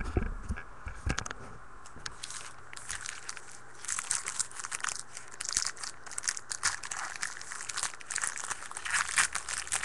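Plastic trading-card pack wrapper being torn open and crinkled by hand, a dense crackling that thickens a few seconds in. A couple of dull knocks from handling come in the first second.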